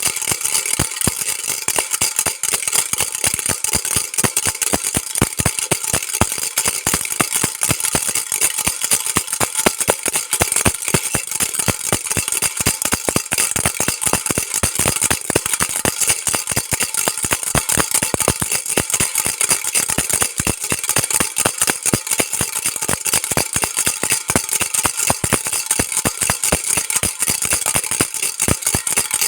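Baby rattle shaken continuously and fast, a dense stream of small hard clicks that never pauses.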